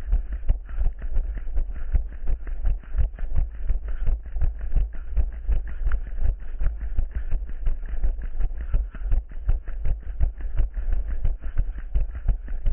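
Running footsteps: a quick, steady run of thuds, about three a second, over a constant low rumble.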